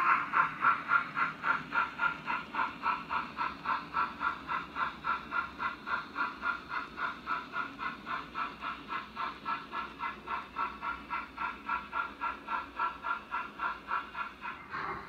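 Model steam locomotive sound from the DCC sound decoder in an OO gauge LMS steam engine: a steady exhaust chuff at about three to four beats a second, slowly growing fainter.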